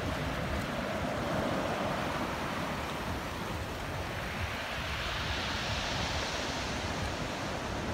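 Small sea waves washing in over a shallow ledge and around wading legs, a steady hiss of surf with one wash swelling about halfway through, over a low wind rumble.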